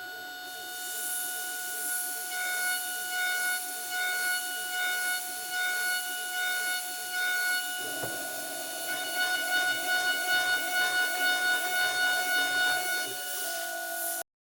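Spindle of a homemade PrintNC CNC mill whining at a steady high pitch while an end mill cuts aluminium, with hissing cutting noise swelling and fading in an even rhythm, about one and a half times a second, quickening from the middle on. The sound cuts off suddenly near the end.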